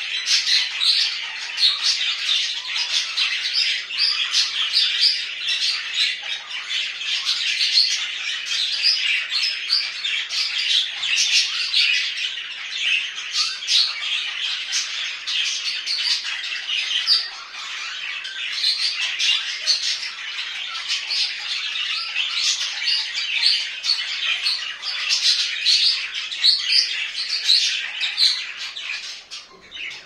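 A flock of budgerigars chattering without pause, many short overlapping warbling calls at once.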